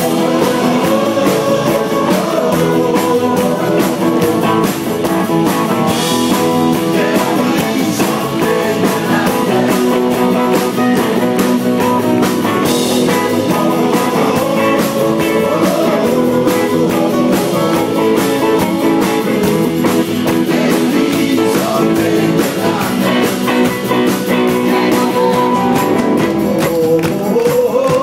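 Live rock band playing a song: several men singing together into microphones over acoustic guitars and keyboard, loud and steady throughout.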